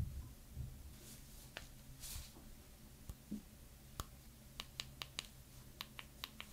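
Soft rustling of knit gloves sliding over an iPhone 12 Pro Max, then about ten small, sharp clicks in the second half as its side buttons are pressed.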